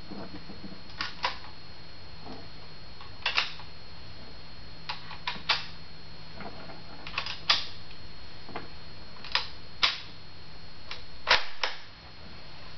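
Sharp metallic clicks, mostly in close pairs every second or two, from the action of a La Coruña FR8 bolt-action rifle in 7.62 NATO being worked by hand.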